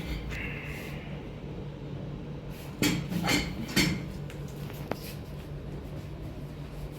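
Three short sharp knocks about half a second apart near the middle, then a single sharp click about a second later.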